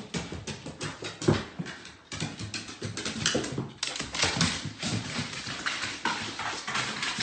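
A dog on wooden stairs: quick, irregular clattering of its paws on the treads, mixed with dog vocal sounds.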